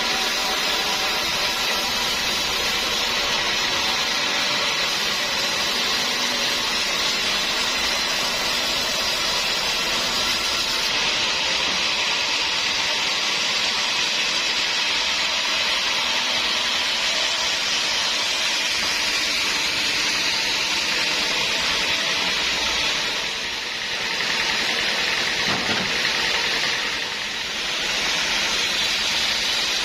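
A sawmill saw running steadily as it cuts through a hard acacia wood stump, a continuous hissing machine noise with a steady hum beneath, easing briefly twice near the end.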